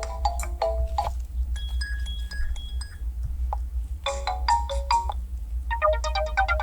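Phone ringtones previewing one after another from the phone's speaker: short melodic snippets of plucked and chime-like notes, with the tune changing every second or two.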